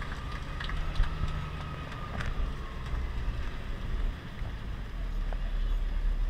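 Amphibious tour vehicle's engine running with a steady low rumble as it climbs a boat ramp out of the water, with a sharp knock about a second in and a smaller one about two seconds in.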